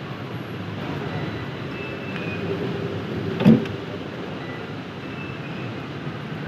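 Steady background noise of a small shop with traffic-like hum, and a single short knock or clunk a little past halfway through, with the handling of drinks bottles at a shop cooler.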